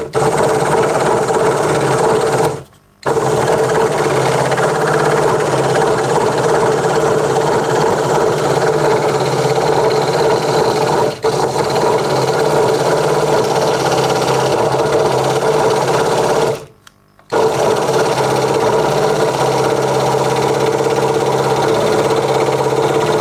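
Craftsman 22-inch scroll saw running steadily, its blade stroking up and down as it cuts an outline through a wooden board, a continuous even buzz. The sound drops out abruptly twice, about two and a half seconds in and again about seventeen seconds in.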